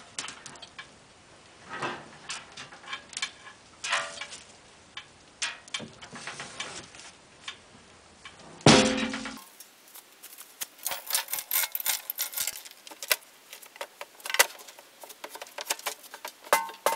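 Scattered metallic clinks and clanks of chain and rigging hardware being handled. There is one heavier clank about nine seconds in, followed by a run of quick light ticks and rattles.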